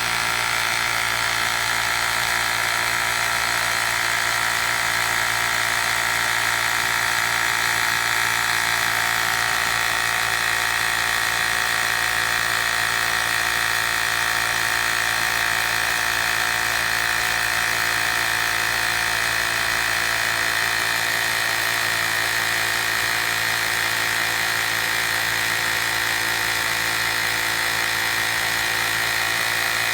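Woowind AP2-P cordless electric tyre inflator's small compressor running steadily while pumping up a tyre, a continuous hum with a high whine.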